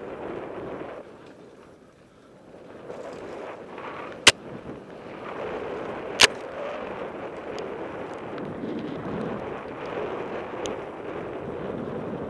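Mountain bike ridden fast along a dirt and gravel trail: steady tyre rumble with small rattles, easing off briefly about two seconds in. Two sharp knocks about two seconds apart near the middle stand out as the loudest sounds.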